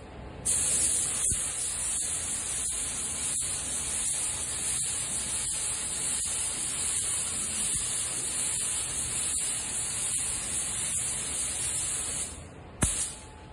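Gravity-feed paint spray gun hissing steadily with the trigger held as it atomizes metallic topcoat onto a panel in a full wet coat. The hiss starts about half a second in and stops near the end, followed by one sharp click.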